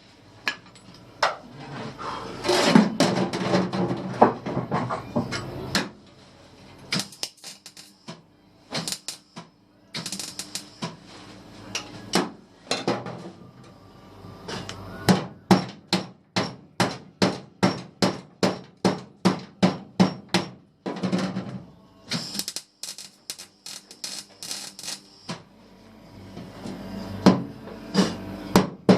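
Hammer striking metal again and again, in a steady run of about two blows a second in the second half, with stretches of denser, noisier clatter between runs of blows.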